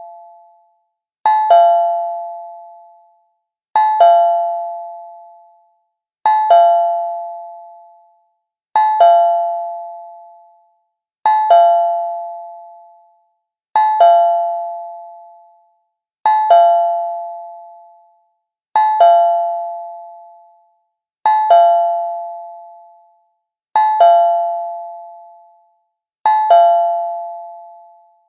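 Cartoon doorbell chime rung over and over, about every two and a half seconds. Each ring is two quick strikes that ring out and fade over about two seconds, eleven rings in all.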